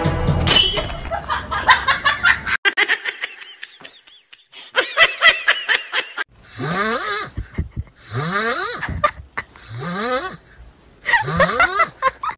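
A person laughing hard in a run of separate bursts about a second and a half apart, each rising steeply in pitch, after a stretch of lighter, quicker giggling.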